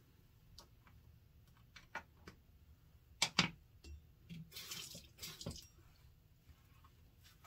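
Small items being handled on a counter: scattered clicks and knocks, two sharp clicks a little over three seconds in, then a second or so of rustling.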